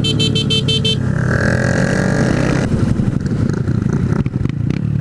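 Honda Grom's 125 cc single-cylinder engine running under way, with wind buffeting the microphone. A rapid pulsing high beeping sounds through the first second, and the engine's pitch rises from about a second in.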